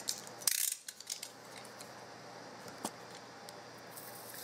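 A small clear plastic tub being handled and prised open: a short scratchy rustle about half a second in, then scattered light plastic clicks and taps.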